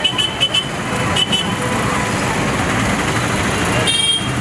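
Busy roadside street noise: steady traffic with voices mixed in. A few short high-pitched squeaks come in the first second or so and once more near the end.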